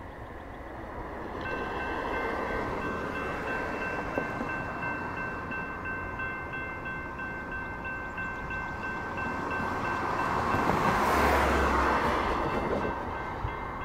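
Electronic level-crossing bell ringing steadily as the crossing activates, starting about a second and a half in. Near the end a car drives past close by over the crossing.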